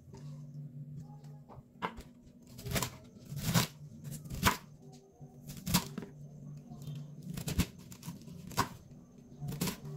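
Kitchen knife cutting cabbage into large pieces on a wooden cutting board: about nine short, sharp cuts, roughly one a second, with a faint low hum beneath.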